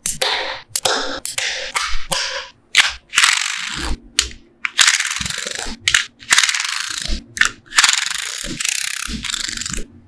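Small magnetic balls clicking as rows are pressed into place. These give way to second-long runs of rapid, rattling clicks as whole layers of balls snap down onto the block.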